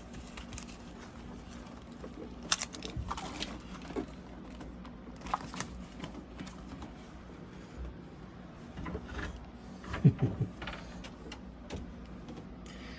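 Hand tools and metal parts clicking and knocking at a Mercruiser 5.0 MPI engine's intake manifold as it is worked at, the manifold stuck and not coming free. Scattered light clicks with a few sharper knocks, the loudest about ten seconds in.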